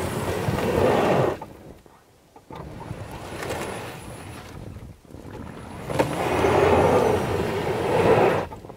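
Nissan Leaf electric car's tyres spinning and digging through deep snow, a rushing noise with no engine note. It comes in surges: loud for the first second or so, dropping away sharply, returning more quietly, then loudest from about six seconds in before cutting off just before the end.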